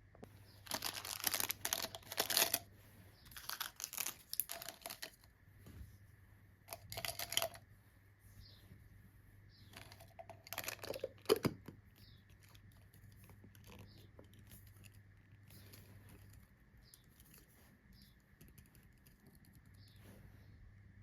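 Packaging being torn and crinkled in several noisy bursts over the first dozen seconds, then only faint handling rustles.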